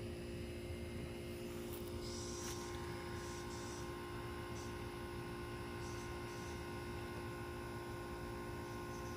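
Steady machine hum with several constant tones and no change in level, with a few brief soft hissy sounds a couple of seconds in.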